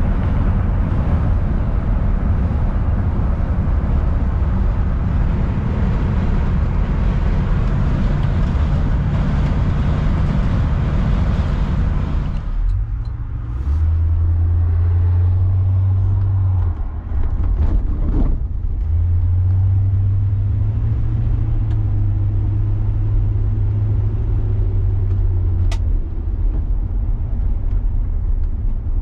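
Road and wind noise inside a moving 1966 Ford Galaxie 500 with its 352 V8, which falls away sharply about twelve seconds in as the car slows. After that, a low steady engine and exhaust hum carries the rest, broken once briefly, as the car rolls along at low speed.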